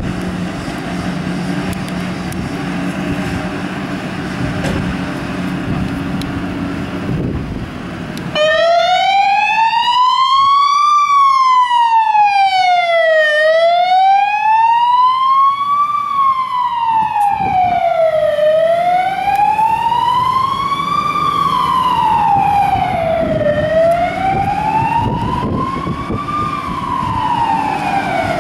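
Fire engine on an emergency departure. For about the first eight seconds only its diesel engine is heard running, then its siren comes on and wails slowly up and down, one rise and fall about every five seconds.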